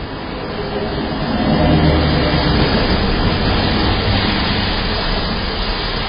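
A pickup truck driving past on the street. Its engine and road noise swell to a peak about two seconds in and then ease off a little. Heard through a doorbell camera's microphone.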